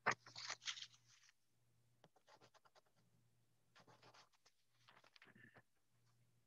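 Near silence: room tone over a call microphone, with faint scratching and rustling in a few short spells and a faint low hum that cuts in and out.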